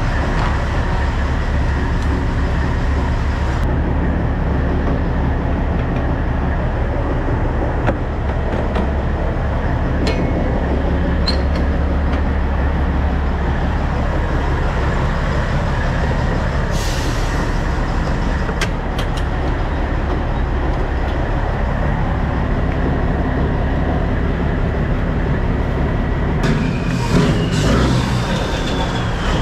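Semi-truck's diesel engine running steadily, with a brief high squeal that rises and then falls near the end.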